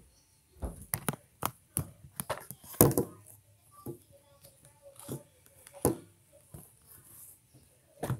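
Handling noise from a phone being moved about and set up for filming: a string of irregular knocks and thumps, the loudest a little under three seconds in.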